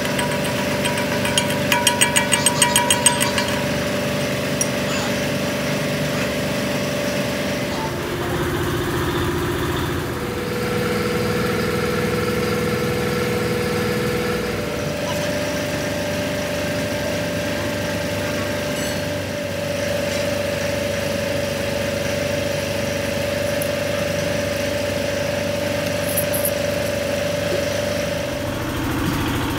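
An engine running steadily, its pitch stepping down and back up a few times, with a brief patch of rapid clicking near the start.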